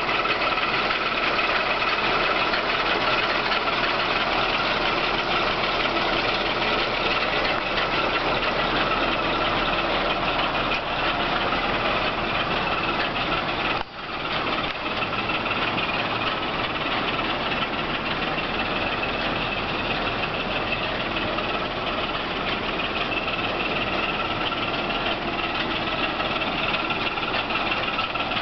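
1953 American LaFrance J-series V12 petrol engine, with twin Zenith carburettors and freshly rebuilt after a top-end overhaul and valve job, running at a steady idle. The sound dips for a moment about halfway through.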